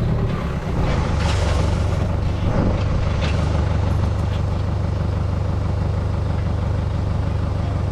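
Tractor engine running steadily as it pulls a wheel hay rake, with a few rattles and clanks in the first few seconds.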